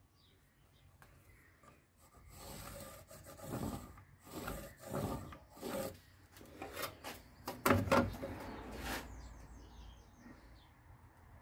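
A steel handsaw blade sliding and scraping over rough sawn timber as it is shifted into place as a straightedge for pencil marking. It comes as a run of irregular rubbing strokes, loudest a little past the middle, dying away about two seconds before the end.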